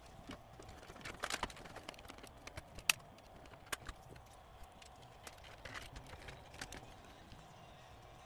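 Scattered light clicks and knocks of plastic and metal parts as the cassette deck's two tape mechanisms are handled and seated back into the front panel, with a cluster of clicks about a second in and the sharpest knock about three seconds in.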